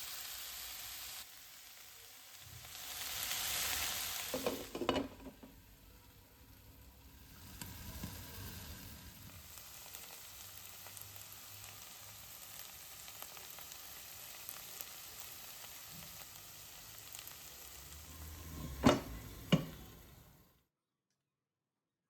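Food sizzling in a frying pan, a steady hiss that swells briefly early on, with a few knocks around five seconds in and two sharp knocks near the end. The sound then cuts off suddenly.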